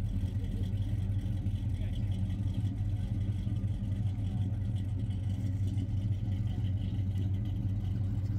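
Car engine idling steadily, a low even rumble, with faint voices of people around.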